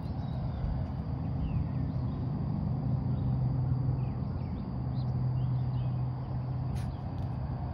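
Steady low machine hum, a little stronger through the middle, with faint bird chirps now and then.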